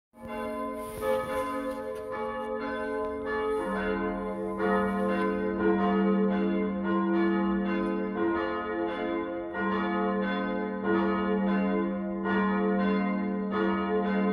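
Church bells ringing, struck over and over at a steady pace, with a lower bell joining about four seconds in.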